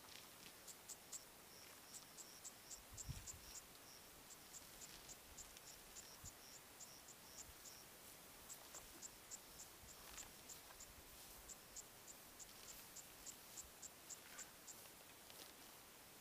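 Faint insects chirping in the grass, short high chirps about three or four a second with a second, softer series overlapping in the first half. There is one faint low thud about three seconds in.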